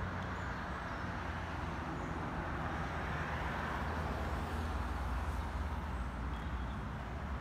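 Steady low motor-vehicle rumble with an even hiss over it and no sudden events.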